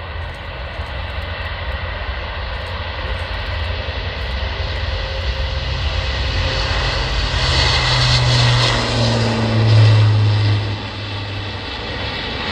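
Airbus A400M's four turboprop engines at takeoff power as it rolls down the runway and lifts off. The sound grows steadily louder to a peak about ten seconds in as the aircraft passes, with a deep hum, then eases slightly.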